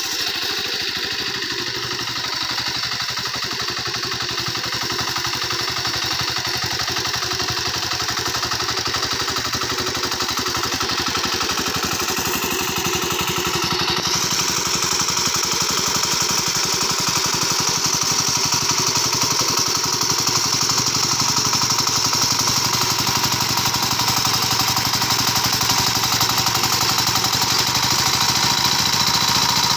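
Hand tractor's small single-cylinder engine running steadily under load while it pulls through wet paddy mud, a fast even chugging that grows gradually louder as the tractor comes closer.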